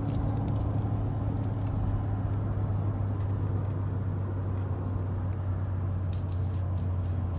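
Cabin sound of a 2020 Ford Expedition's 3.5-litre twin-turbo V6 and tyres at about 60 mph, a steady low drone as the engine eases off after a full-throttle run, dropping slightly in pitch near the end.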